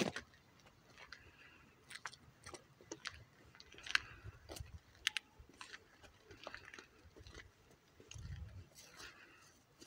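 Footsteps crunching on gravel and dry grass, with irregular sharp clicks and a few low bumps of phone-handling and wind noise.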